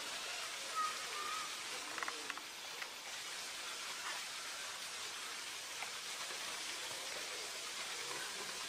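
Steady outdoor background hiss, with a few faint clicks and a brief faint high chirp about a second in.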